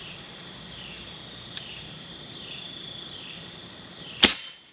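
A single sharp report about four seconds in: an Airforce Texan .257 precharged pneumatic air rifle firing a slug at a balloon 500 yards away. Behind it, a steady high-pitched insect chirping.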